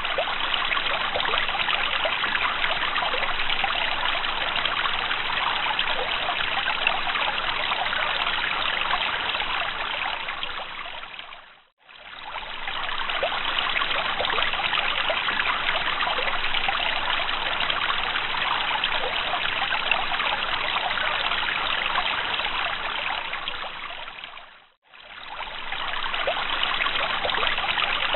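Running water, a steady trickling flow. It fades out and back in twice, about twelve seconds in and again about twenty-five seconds in, as the recording loops.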